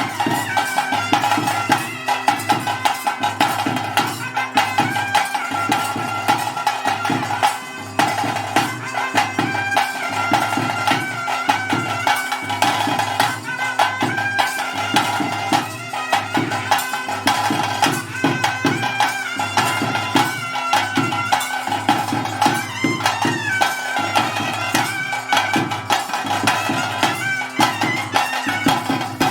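Traditional ritual band music: a reed pipe plays a wavering, ornamented melody over a steady drone, with drums beating a dense, steady rhythm throughout.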